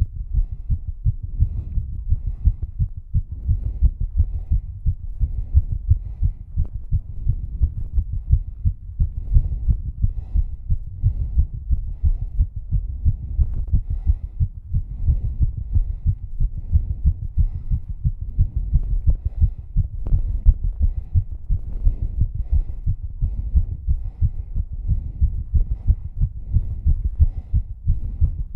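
A woman's heartbeat racing from exercise: fast, regular low thumps that repeat steadily.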